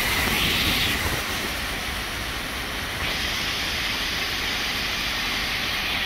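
Water cascading down the steps of a stepped fountain: a steady rushing hiss that grows brighter about three seconds in.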